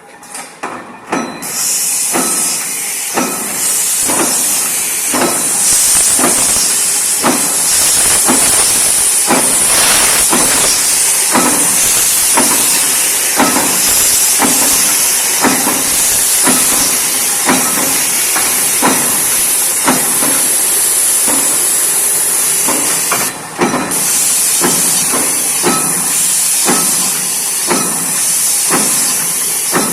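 CNC punch press punching sheet metal plate in an even run of sharp knocks, roughly one every three-quarters of a second. A steady loud hiss comes in about a second in, runs under the strokes, and drops out briefly about three-quarters of the way through.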